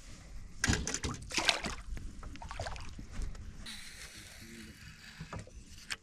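Largemouth bass splashing as it is released by hand at the water's surface: two short bursts of splashing within the first two seconds, then a few smaller knocks and a quieter steady hiss.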